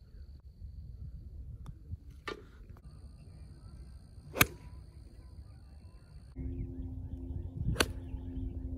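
Golf club heads striking golf balls on full swings: a sharp crack from a driver tee shot about four and a half seconds in, the loudest sound, then a second sharp strike from a fairway shot about three seconds later. Wind rumbles on the microphone throughout, and a low steady hum comes in shortly before the second strike.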